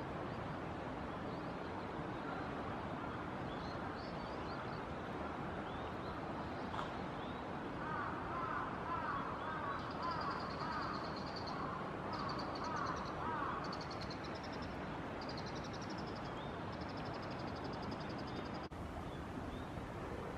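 Steady rush of flowing water with wild birds calling over it: a run of short, harsh repeated calls in the middle, and high, fast trilled calls from about halfway through.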